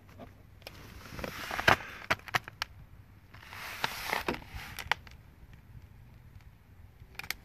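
Movement noise from someone crouched in snow: two bursts of rustling and crunching with sharp clicks, about a second in and again around four seconds in, and a click near the end.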